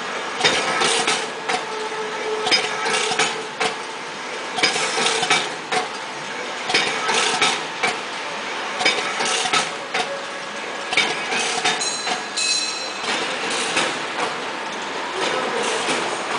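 KT-450 rotary pillow packaging machine running while it wraps wafer biscuits: a steady machine hum with repeated clacks of its mechanism, coming in clusters about once a second.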